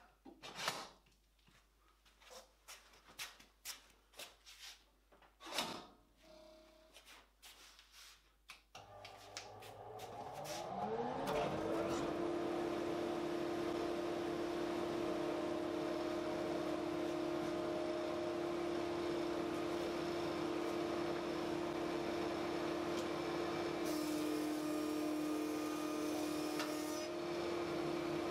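Scattered knocks from handling the boards, then a thickness planer's motor starts about nine seconds in, rising in pitch over a few seconds to a steady run. Near the end its pitch dips slightly and a hiss rises for about three seconds as a board feeds through the cutter.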